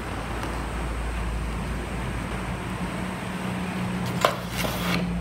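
Craft knife blade cutting a curve through a paper print on a cutting mat, with a sharp tick a little after four seconds and a short scrape of blade and paper just before the end. A steady low hum runs underneath.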